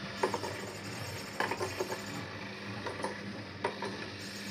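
Battery-powered motorised peekaboo cat toy running: a steady low motor hum with scattered light clicks and knocks from the mechanism and the cats around it.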